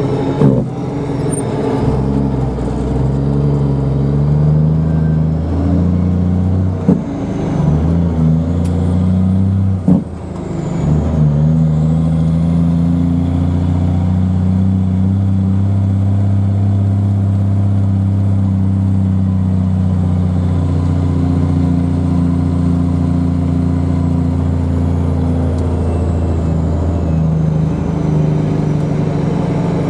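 Peterbilt dump truck's diesel engine running steadily under way. About ten seconds in its sound dips briefly and the pitch changes before it settles again, with a faint high whine above the engine.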